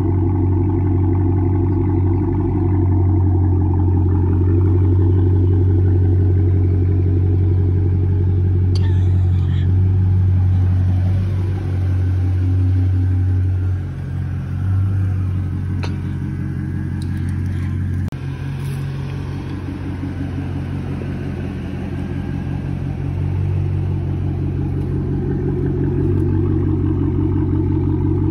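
Chrysler 300's Hemi V8 engine running with a deep, steady exhaust note. The sound dips briefly about halfway through and is a little quieter for a few seconds after.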